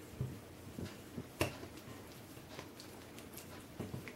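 Faint squishes and light taps of oily hands rubbing a glass mixing bowl and handling pizza dough, with a few soft clicks; the sharpest click comes about a second and a half in.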